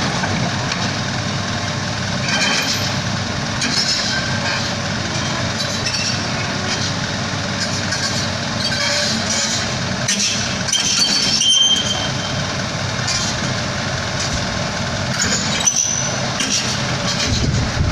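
Kobelco SK75 excavator's diesel engine running steadily as the machine tracks up the ramp onto a truck bed, with scattered clanks of steel tracks and a few short high squeaks.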